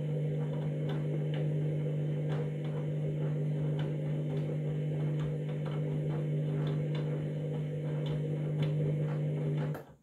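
Candy front-loading washing machine running its wash: a steady low motor hum with light, irregular clicks as the drum turns the load. It cuts off suddenly near the end.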